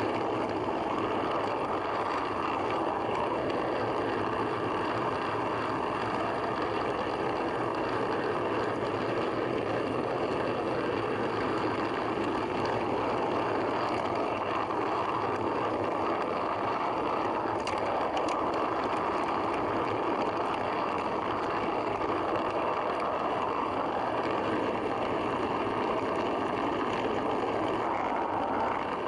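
Model train running along the track, heard from on board the coach: a steady rolling rumble of wheels and running gear, with a few faint clicks around the middle.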